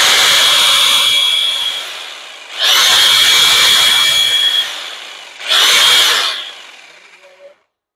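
Progen 9515-HG 1250 W, 6 kg electric demolition hammer running with no load, its point chisel held free in the air, with a steady high motor whine. The trigger is released about two seconds in, and the tool is started again about half a second later and once more about five and a half seconds in. The motor winds down after each run, the last one fading out near the end.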